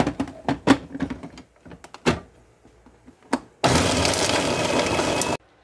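A few sharp clicks and knocks, then about three and a half seconds in an electric food chopper runs in one short burst of under two seconds. It grinds coriander, green chilies, garlic and ice cubes for green chutney, crunching the ice, and stops abruptly.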